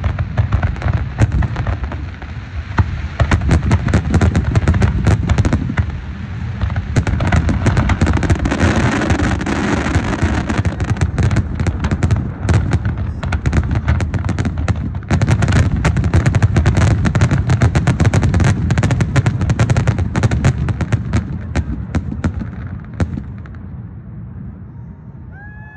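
Fireworks going off in a dense, continuous barrage of rapid overlapping bangs and crackles over a heavy low rumble. The barrage thins out and fades over the last few seconds.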